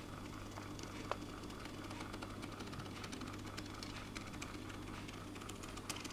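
Quiet room tone: a steady low hum with scattered faint clicks and ticks, a slightly sharper click about a second in and another near the end.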